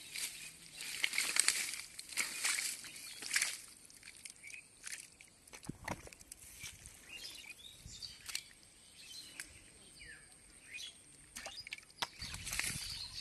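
Hands digging in wet mud, squelching and sloshing, with a run of louder wet bursts in the first few seconds, then quieter scattered squelches and clicks until it picks up again near the end.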